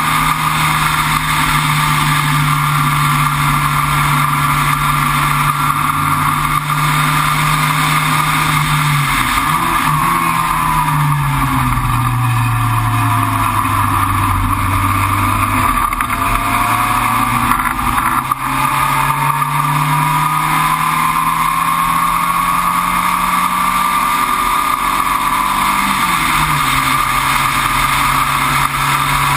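Entropy sports racer's engine on track, heard onboard over constant wind and road noise. It holds a steady note at speed, then drops in pitch in steps about nine seconds in as the driver brakes and downshifts. From about halfway it climbs steadily under acceleration, then falls once near the end at an upshift.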